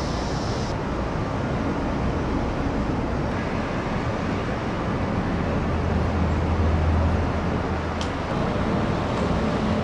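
Steady rumbling background noise with a constant hiss over it, like distant traffic, swelling slightly about six to seven seconds in, with one faint click near the end.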